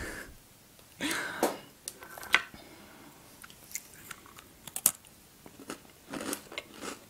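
Small crunchy cereal cookie with apple pieces being bitten and chewed, giving sharp crunches at irregular intervals.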